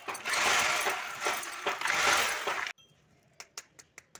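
Loud rustling and handling noise as tools and a plastic bag are rummaged through. It stops abruptly, and a quick run of light hammer taps follows, about four or five a second: a club hammer tapping a plastic wall plug into a hole drilled in the wall.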